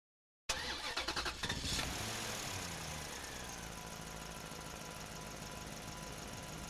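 An engine starting: about a second of rapid, uneven pulses just after the sound cuts in, then settling into a steady idle.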